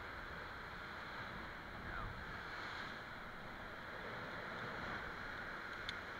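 Steady rushing of surf and wind in a sea-cliff gully, with a single sharp metallic click near the end as a karabiner gate snaps shut on the rope.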